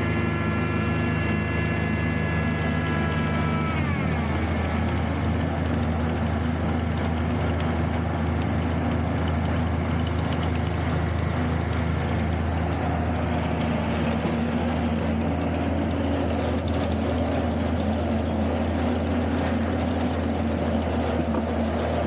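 Diesel engines running at an opal agitator: a steady low drone throughout, with a second, higher engine note that holds and then drops in pitch about four seconds in, leaving a rougher, noisier running sound.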